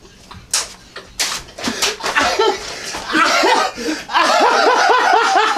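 Three sharp smacks in the first two seconds, then a person laughing in quick rhythmic pulses of about five a second, growing louder about four seconds in.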